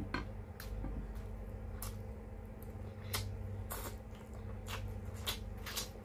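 Close-mic eating sounds: wet chewing and lip smacks, about eight short sharp clicks at irregular spacing, over a steady low hum.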